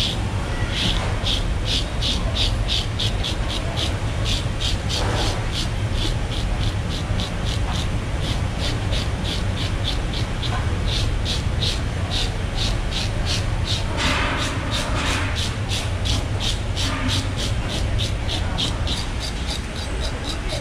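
Metal fish scaler scraping the scales off a whole salmon's skin in quick repeated strokes, about two or three a second.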